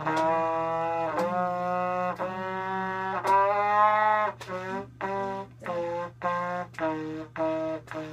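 Student trumpet playing a scale exercise: about four longer held notes stepping up, then about six shorter, detached notes stepping back down.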